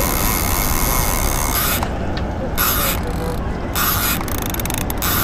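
Large conventional lever-drag saltwater reel being cranked hard, its gears and ratchet clicking, as line is wound in on a hooked fish.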